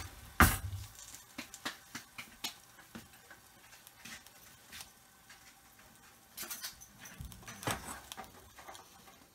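Water sizzling and spitting in a hot skillet under a glass lid as the omelette steams: scattered, irregular sharp pops and crackles over a faint hiss, the loudest pop about half a second in.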